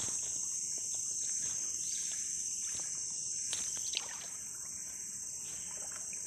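Steady, high-pitched drone of insects from the riverside forest, with a few paddle splashes and knocks about halfway through as a wooden canoe is paddled.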